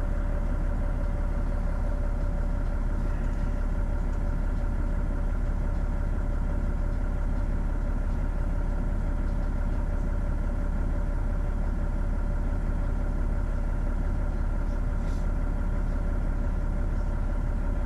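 Semi truck's diesel engine idling steadily, with no revving.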